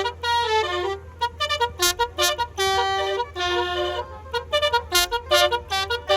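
Telolet horns tooting a fast tune of short notes that jump between pitches, over a steady low hum.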